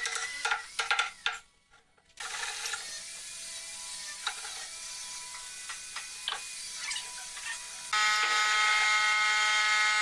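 Workshop tool noise: scattered clicks and knocks, cut off briefly near the start. About eight seconds in, a woodworking machine starts and runs steadily and louder with a whine.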